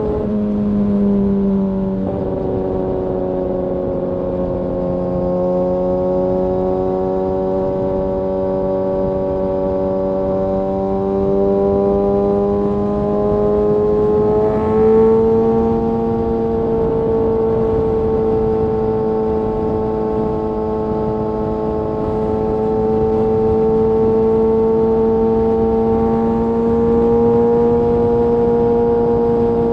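Kawasaki ZX-6R inline-four engine running at steady cruising revs, its pitch slowly climbing, then jumping up suddenly about halfway through before holding steady again.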